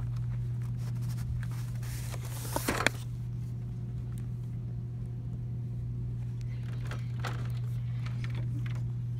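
A steady low hum under light rustling handling noise, with a short clatter of knocks a little under three seconds in.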